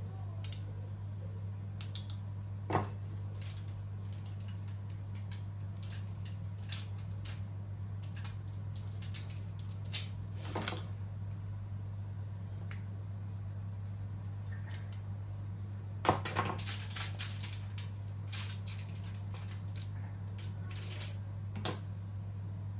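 Scattered clinks and knocks of kitchen utensils and dishes being handled, with a quick run of clatters about two-thirds of the way through, over a steady low hum.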